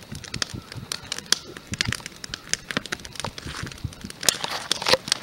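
Wood campfire crackling, with irregular sharp snaps and pops.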